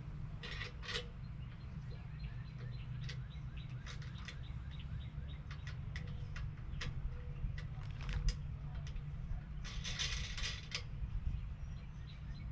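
Scattered light clicks and small knocks of pressure-washer parts being handled and fitted by hand, with short rattling bursts near the start and about ten seconds in, over a steady low rumble.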